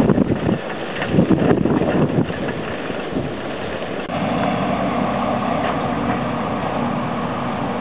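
Wind buffeting the microphone in loud gusts during heavy wet snowfall. About four seconds in the gusts give way to a steady hiss with a faint, steady low hum.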